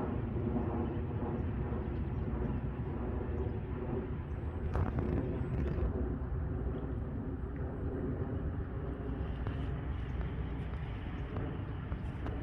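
Radio-controlled model boat running steadily on the water, a faint even motor hum under a low outdoor rumble of wind and water noise.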